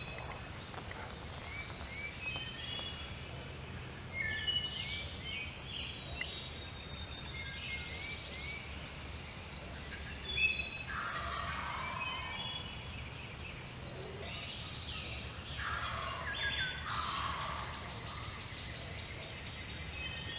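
Wild turkey gobbling twice, about halfway through and again later on, while songbirds chirp throughout over a low steady background rumble.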